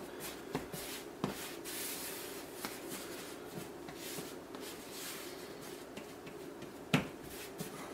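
Hands pressing and patting soft biscuit dough into a ball on a work surface: faint soft rubbing and pats, with a few small clicks and one sharper tap about seven seconds in.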